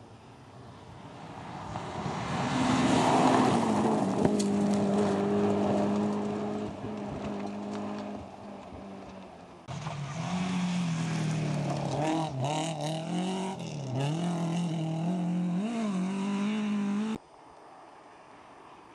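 Rally car engines at full throttle in two clips. The first car closes in and runs past with a steady high engine note. After an abrupt cut about ten seconds in, another car's engine revs rise and fall again and again through gear changes, then cut off suddenly near the end.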